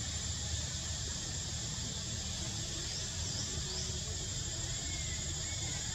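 Steady high-pitched insect drone over a low rumble, with a few faint short rising squeaks about three seconds in.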